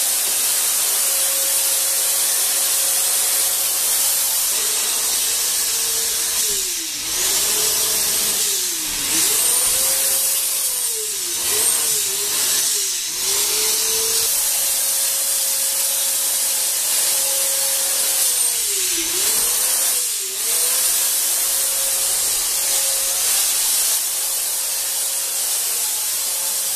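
Handheld electric ULV cold fogger spraying disinfectant mist: its blower motor whines steadily over the hiss of the spray. Several times the whine sags in pitch and climbs back again.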